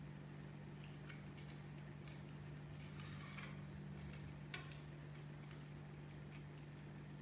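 Scattered faint clicks and small knocks over a steady low hum, with a brief rustle about three seconds in and a sharper click a second and a half later.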